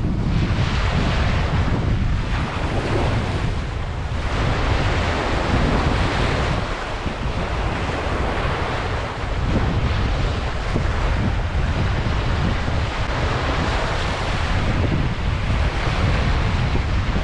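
Ocean waves breaking and washing up a beach, the surf swelling and ebbing every few seconds, with wind buffeting the microphone in a low rumble.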